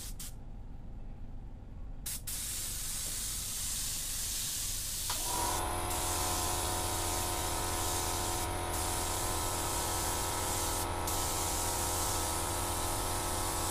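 Hiss of a gravity-feed spray gun laying a light mist coat of clear coat, pausing for about two seconds just after it starts. About five seconds in, the air compressor kicks in and runs with a steady hum under the spray hiss.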